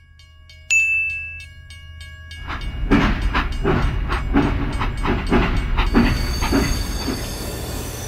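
Battery-powered toy steam locomotive running on its plastic track: its motor hums steadily, a short high whistle-like tone sounds about a second in, and from about two and a half seconds a rhythmic chugging at about two to three beats a second.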